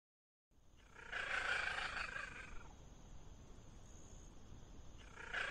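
A cat giving two drawn-out calls about four seconds apart, each lasting about a second and a half, over a faint steady background hiss.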